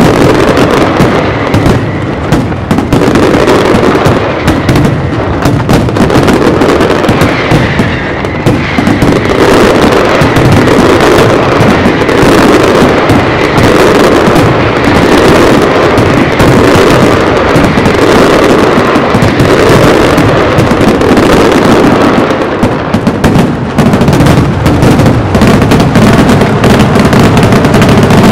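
Large aerial fireworks display: a continuous, dense barrage of shell bursts, bangs and crackle, very loud and without a break.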